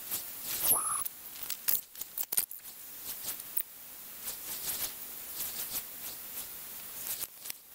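Outdoor sound played back twenty times too fast: a busy string of short high clicks and ticks over a hiss, with one quick rising squeak about three-quarters of a second in.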